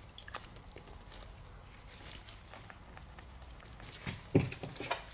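Light clicks and knocks of small steel fuel-injector parts being fitted together by gloved hands: one faint click about a third of a second in, then a short cluster of clicks and taps starting about four seconds in, the loudest near the start of that cluster.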